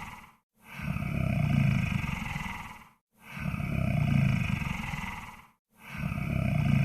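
Monster snore sound effect: deep, growly snoring breaths, each swelling and fading over about two seconds with a short silence between, repeating evenly about every two and a half seconds.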